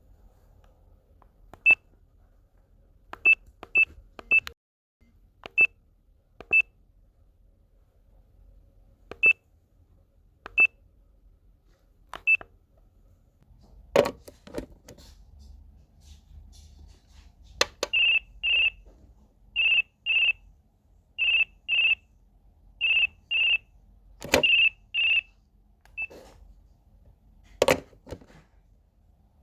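Telephone sounds: single short electronic key beeps at uneven intervals, then an electronic ring in double pulses repeating about every one and a half seconds, with handling clicks in between and near the end.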